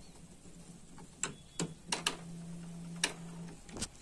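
Epson L805 inkjet printer switched on and starting up: a run of sharp mechanical clicks from the carriage mechanism, with a low motor hum for about a second and a half in the middle, as the print head moves out of its parked position.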